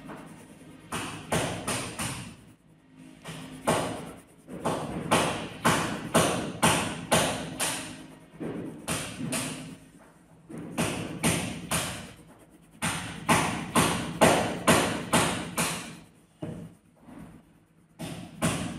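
Runs of sharp taps or knocks, several a second, breaking off briefly a few times.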